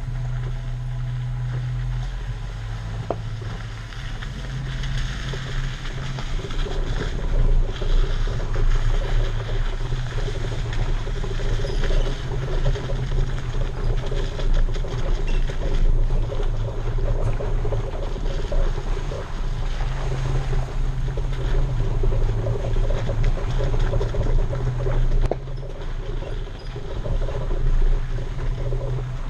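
Jeep Wrangler engine running at low trail speed, its low hum shifting a little with the throttle, while the off-road tyres crunch and crackle over dirt and loose gravel.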